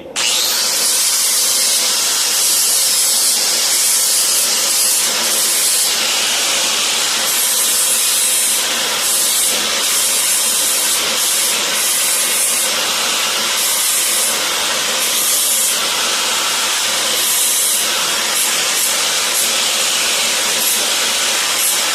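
Angle grinder with a fine 120-grit flap disc running steadily while sanding the edges of a forged steel bracket. The high, hissing grind rises and eases every second or so as the disc is pressed onto the steel and lifted off.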